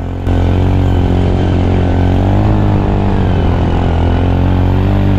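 Motorcycle engine running under way, a steady drone whose pitch wavers slightly as it rides. It gets suddenly louder about a quarter second in.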